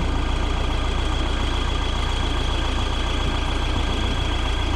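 An engine idling steadily, a constant even hum with a thin high tone over it.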